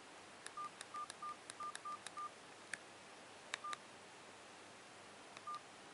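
Faint keypad beeps and button clicks from a CSL Euphoria Pro BB7500 feature phone as its navigation keys are pressed to step through tracks in the music player. About eight short beeps of one pitch, most in a quick run in the first two seconds, the last two spaced out.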